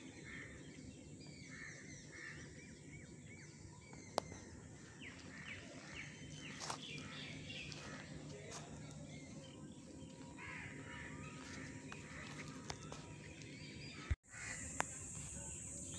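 Faint open-air ambience with many birds calling in short, scattered calls, a few sharp clicks, and a brief dropout near the end.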